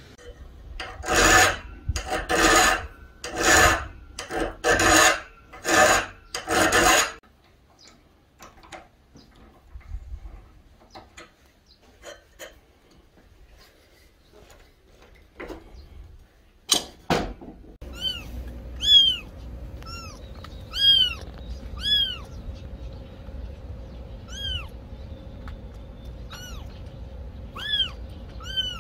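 A hand file rasping along a steel knife blade, six long even strokes about a second apart, then a few light ticks and two sharp clicks. From about two-thirds of the way through, a kitten mews over and over in short, high, rising-and-falling calls.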